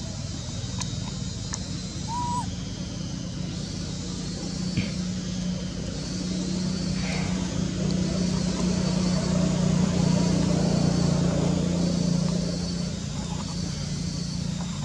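Steady hum of a motor vehicle's engine, swelling to its loudest in the middle and easing off near the end, over constant outdoor background noise. A brief high chirp sounds about two seconds in.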